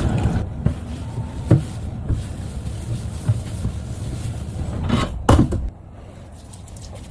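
A low rumble with a few sharp knocks, the loudest two close together about five seconds in, after which the rumble drops away.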